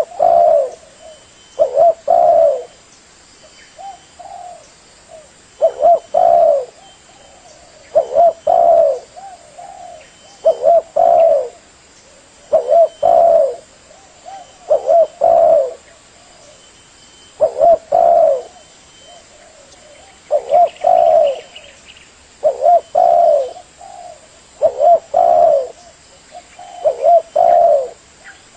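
Spotted dove (tekukur) cooing: short phrases of several low, pitched coo notes, repeated about every two to three seconds.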